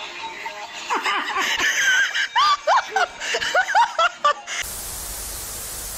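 Laughter in quick, high-pitched bursts whose pitch rises and falls. Near the end the laughter gives way to a steady hiss of static that cuts off abruptly.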